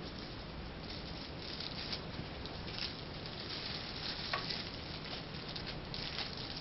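Thin plastic merchandise bags crinkling and rustling as they are handled, with irregular crackles throughout and one sharper click about four seconds in.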